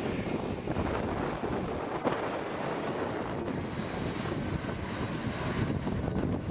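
Airbus A320-232's IAE V2500 turbofans passing low overhead on landing approach: a steady wash of jet noise whose hiss brightens about midway as the aircraft goes over. Wind buffets the microphone throughout.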